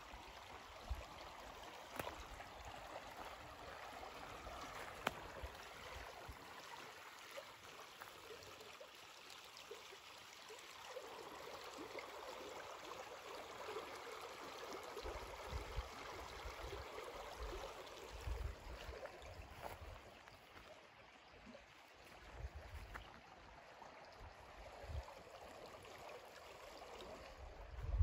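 River water flowing, a steady rush of running water, with occasional low rumbles.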